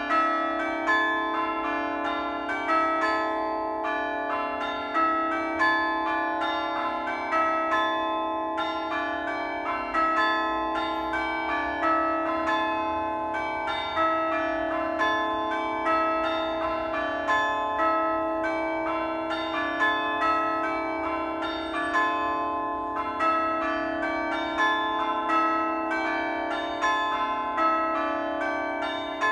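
A peal of church bells rung in steady succession, each stroke ringing on and overlapping the next.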